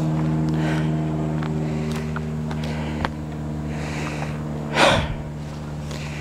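A hiker's footsteps and breathing, a brief rustle about once a second with a louder one about five seconds in, over a steady engine hum from an unseen motor that fades a little partway through.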